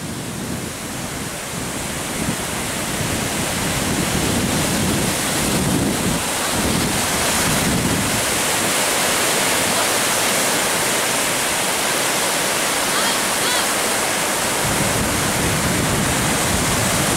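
Ocean surf breaking and washing through the shallows: a steady rushing hiss of waves, a little quieter for the first few seconds.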